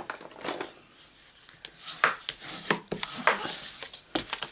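A folded white cardstock card base having its crease burnished with a bone folder: a run of short, irregular rubbing strokes of the tool scraping across the paper.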